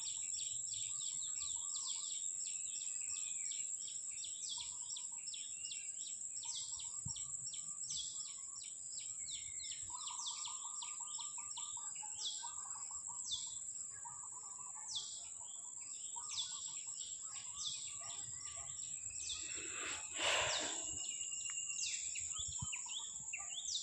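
Birds chirping over and over in short calls above a steady, high-pitched insect whine, with a lower, rapid pulsed trill about ten seconds in and a brief louder sound about twenty seconds in.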